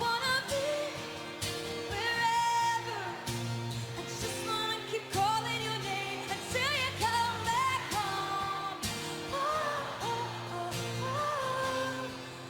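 Live pop ballad: a woman singing held and wavering notes with quick vocal runs over a band backing of bass and drums.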